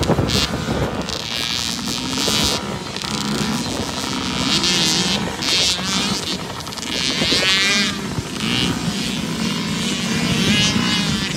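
Small 65cc two-stroke motocross bike engines racing on a dirt track. The pitch climbs and drops again and again as the riders work the throttle and shift gears.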